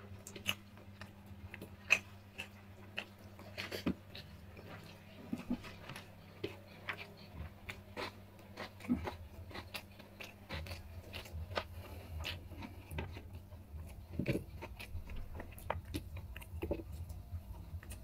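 Eating by hand: fingers mixing rice and egg curry on a plate, with chewing and soft mouth clicks scattered throughout, over a faint steady low hum.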